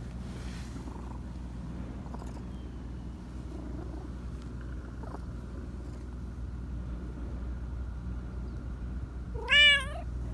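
A black Persian cat gives one loud, wavering meow near the end, over a steady low hum.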